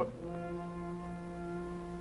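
A single low brass note held steadily in an orchestral cartoon score.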